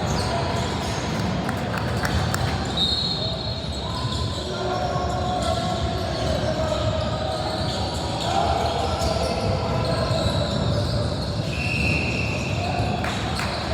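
Basketball being bounced on a gym floor during play, with indistinct voices of players and spectators echoing in the hall. A few short high squeaks stand out, one about three seconds in and another near the end.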